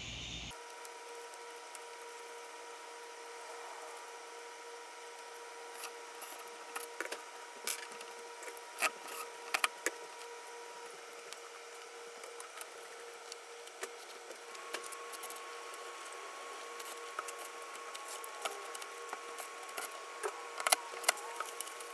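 Metal door lockset hardware (deadbolt and lever handle) being fitted onto a door: scattered sharp clicks and taps from about six seconds in, the loudest near the end, over a faint steady hum and hiss.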